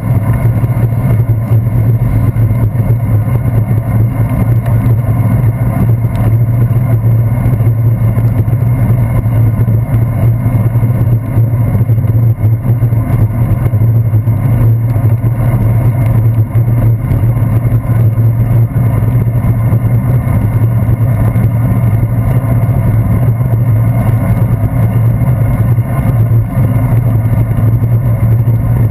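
Steady loud rumble of wind and road vibration from a bicycle riding on wet pavement, picked up by a handlebar-mounted GoPro Hero 2, with a strong low hum.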